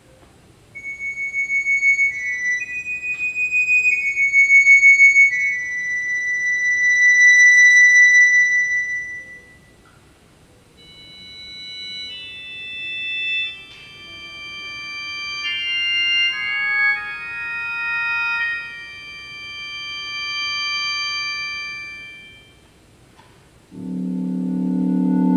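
Wind controller driving a Yamaha WT11 tone generator: long, high, organ-like synthesized tones, the first ones pulsing with a fast tremolo, then several high tones held and overlapping. Near the end a low, fuller chord comes in.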